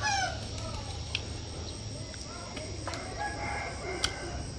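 A rooster's crow tails off at the start, then fainter chicken calls follow. A few sharp crunches of teeth biting into a firm green fruit come through, the loudest about four seconds in.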